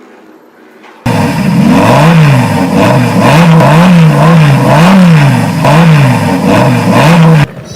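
Car engine revving up and down over and over, its pitch rising and falling about once a second; it starts suddenly about a second in and cuts off abruptly near the end.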